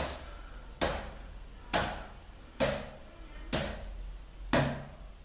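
Volleyball being set repeatedly with the fingertips of both hands from a lying-on-the-back position, each overhead pass a sharp slap of ball on hands, six in a steady rhythm about once a second.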